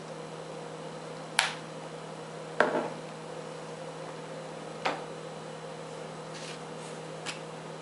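A few light knocks and clicks as a spice tin and measuring spoon are handled and set down, heard over a steady low hum.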